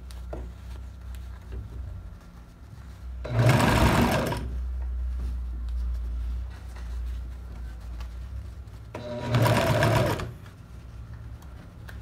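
Small electric sewing machine stitching through folded fabric, in two short runs of about a second each, a few seconds in and again near the end, with a low steady hum between them.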